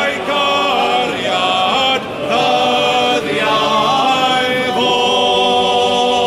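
Male voice choir singing in harmony, holding long chords that move to a new chord every second or two.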